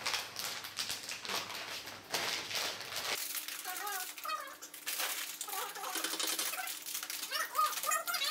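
Plastic snack packet crinkling and crackling as it is handled and opened. About three seconds in this gives way to a few short, high, wavering voice-like sounds.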